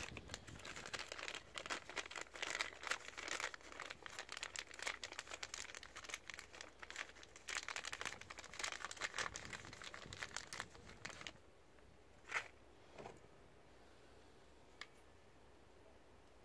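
Thin plastic packet crinkling and crackling as it is handled and opened to take out new replacement seals, for about eleven seconds. It is followed by a few faint clicks.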